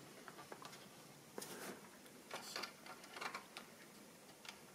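Faint handling noise from a plastic toy Humvee: a few soft clicks and light rubs of fingers on the plastic body and figures, spread through.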